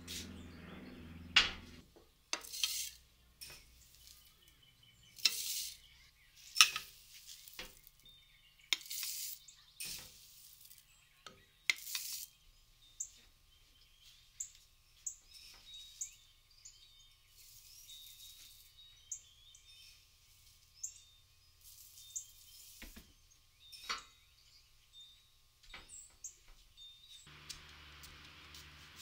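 Dry food pellets poured and shaken in a glass jar: a run of short rattling pours with sharp glass clinks over about the first twelve seconds. After that, small birds chirping in short high calls.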